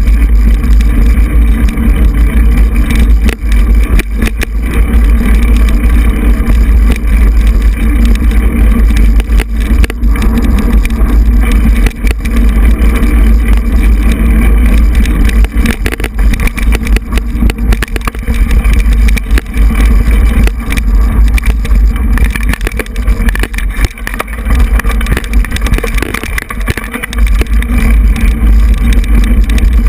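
Mountain bike riding a dirt singletrack, heard through a handlebar-mounted GoPro: a loud, steady low buffeting of wind and vibration on the camera, with frequent knocks and rattles as the bike goes over bumps.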